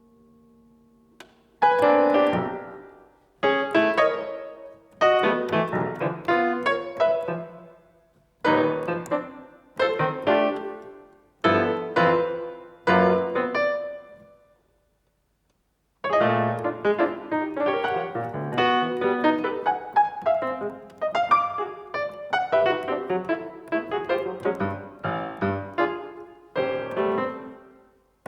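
Solo piano: a lingering ringing tone fades out before the piano comes in about a second and a half in with short struck phrases that ring and die away, each followed by a brief pause. After a full silence about halfway through, the playing resumes denser and almost unbroken.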